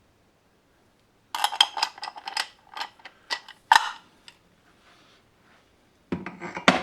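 Steel internals of a 700R4 automatic transmission clinking and rattling against each other as they are lifted out and handled. A quick run of clinks starts about a second and a half in, and another burst comes near the end.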